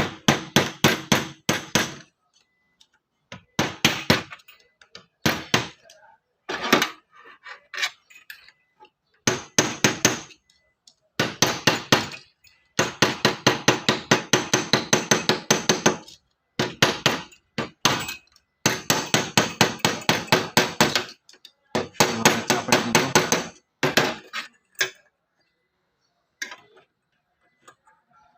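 Hammer tapping rapidly on metal during reassembly of a truck power steering gearbox, many quick strikes a second in runs of one to three seconds with short pauses. Only a few single knocks near the end.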